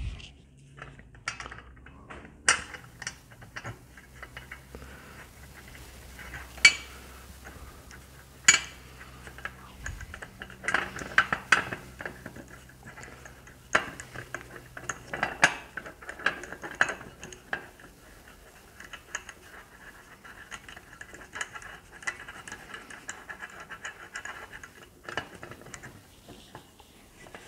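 Metal parts of a race-car pedal box clinking and clicking as the balance-bar clevises are handled and adjusted by hand: irregular light knocks with a few sharper ones.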